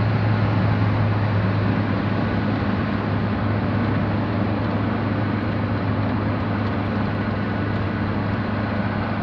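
Steady road and engine noise of a moving car, with a constant low hum underneath.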